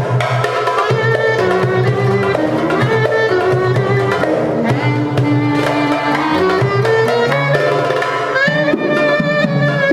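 Instrumental Turkish oyun havası (dance tune) in makam Hicazkar: a melody line with sliding, ornamented notes over a steady hand-drum rhythm.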